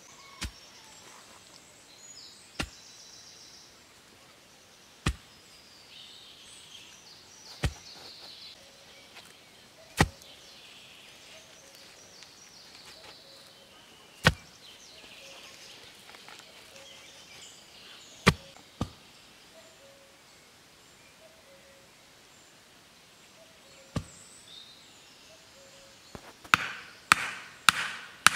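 Wooden stakes being knocked into forest ground: sharp single knocks every two to four seconds, then a quick run of several knocks near the end.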